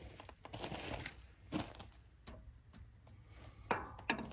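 Light scraping and a few sharp clicks of 5/8-inch steel wire rope being worked into the cable anchor on the winch drum of a John Deere 3325 winch, the loudest click near the end.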